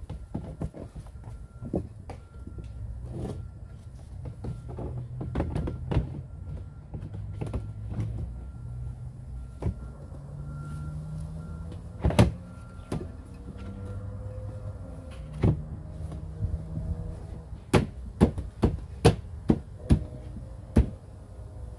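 Hard plastic parts of an Aerobin compost bin being handled and fitted together: scattered clicks, rattles and knocks. There is one loud knock about halfway through, then a run of about seven sharp knocks near the end as the top rim is pressed and tapped into place.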